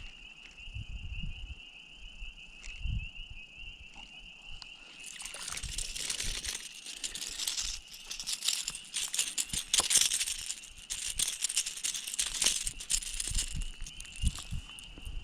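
A hooked pickerel being landed by hand in shallow water: a dense stretch of rapid rattling, clicking and splashing for several seconds from about five seconds in. A steady high-pitched tone runs underneath throughout.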